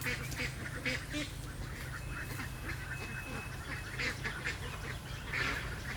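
Ducks quacking: many short calls, some overlapping, throughout, over a steady low hum.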